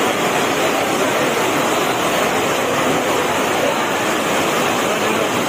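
Heavy rain falling steadily, a continuous hiss.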